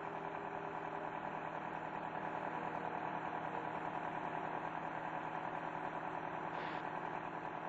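Steady mechanical drone with a constant low hum, like engines idling, unchanging throughout.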